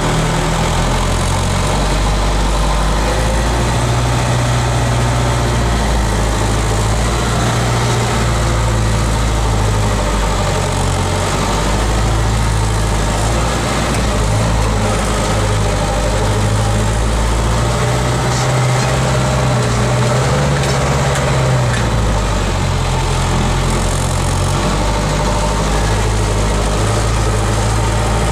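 Unimog diesel engine heard from inside the cab, running at low speed over rough ground, a steady low drone whose pitch shifts a little as the throttle changes.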